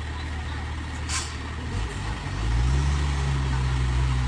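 Heavy truck engine running, with a short hiss about a second in. About two seconds in the engine climbs in pitch and gets louder, as if revved or put under load.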